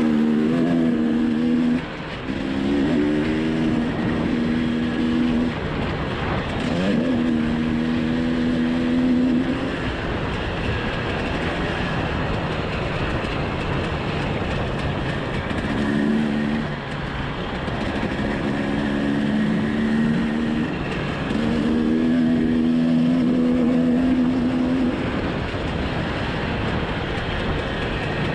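Dirt bike engine under way on a rough dirt trail. Its pitch holds, then drops and climbs again several times as the throttle is opened and closed, with one sharp rev about six seconds in, over a steady rushing noise.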